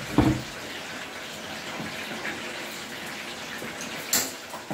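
Chicken deep-frying in hot oil, a steady sizzle. A low knock comes just after the start, and a sharp click sounds near the end as a gas stove burner knob is turned.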